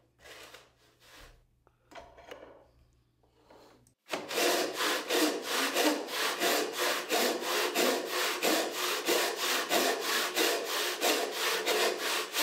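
A homemade Roubo frame saw ripping lengthwise through a board, resawing it into thinner stock. It is faint for the first few seconds, then from about four seconds in comes a loud, even rhythm of rasping saw strokes, about three a second.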